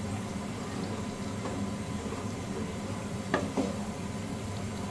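Cornstarch-thickened sauce simmering in a wok on a low gas flame while a wooden spatula stirs it, with two light knocks of the spatula on the pan a little past halfway.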